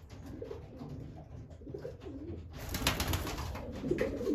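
Racing pigeons cooing, low wavering coos that come and go, with a short burst of rustling about three seconds in.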